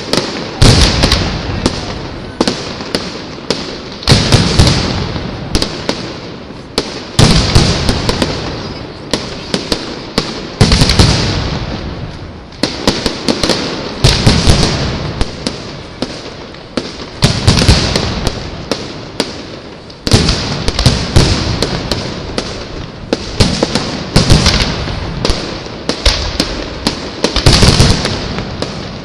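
Aerial fireworks shells bursting in quick succession, a loud boom every second or two, with sharp crackling and popping between the booms.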